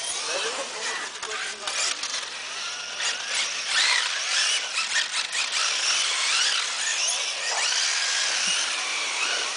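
8x8 RC truck's drive motors and gears whining as it drives, the pitch rising and falling with the throttle, with scattered clicks.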